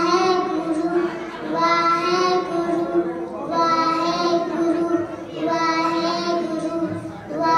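Two young girls singing together into stage microphones, in phrases of about two seconds with short breaks between them.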